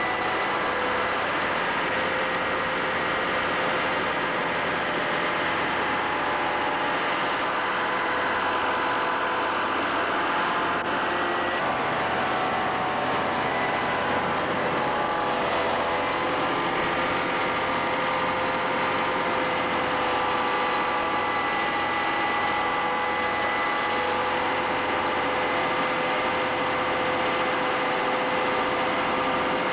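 Pacific Tek vacuum excavator running steadily with a whine of several tones, its suction wand sucking up soil from a hole.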